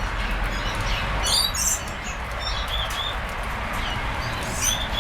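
Parrots chirping: short high calls come in a few scattered clusters over a steady background hiss.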